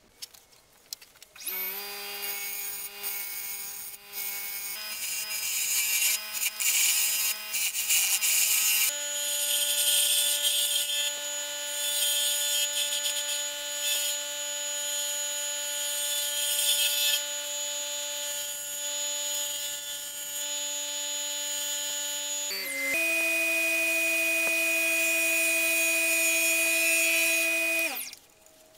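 Axminster variable-speed wood lathe starting up and running with a steady motor whine that steps up in pitch several times, while a gouge cuts into the spinning spalted wood blank with a hissing scrape. The lathe spins down and stops near the end.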